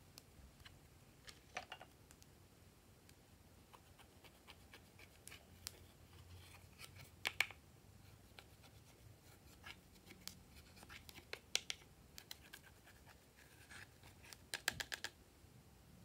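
Small plastic spatula scraping and digging pressed powder eyeshadow out of a plastic palette: irregular, faint scratches and clicks, with a few louder clusters.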